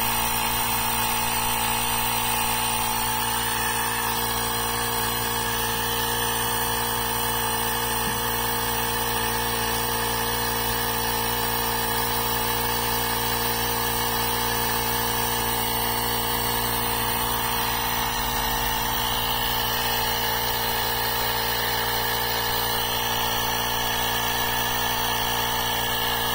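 Portable electric tire-inflator air compressor, built into an Asperx AX260 jump starter, running steadily under load as it pumps a car tire up from 30 toward 35 psi.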